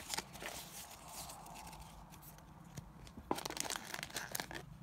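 Paper and card packaging being handled by hand: faint rustling with light taps and crinkles, busier from about three seconds in.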